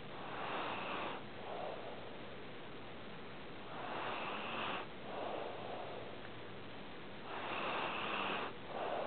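A sleeping pet snoring: three noisy breaths in, about every three and a half seconds, each followed by a shorter, lower-pitched breath out.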